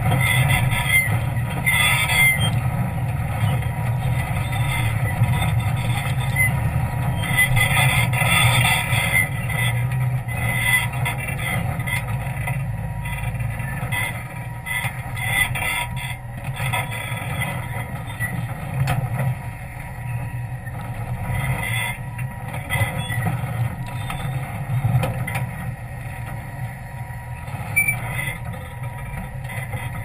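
Jeep's engine running steadily under load at low speed as it crawls up a rocky off-road trail, with a few spells of higher hiss early on the climb.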